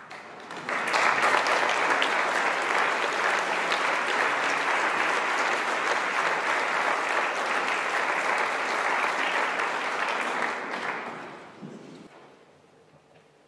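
Audience applauding. The clapping starts about a second in, holds steady, and dies away near the end.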